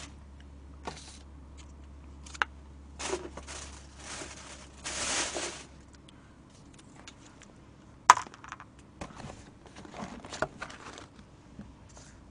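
Rustling and crinkling of plastic packaging and light knocks of takeaway containers being handled on a table, with a sharp knock about eight seconds in.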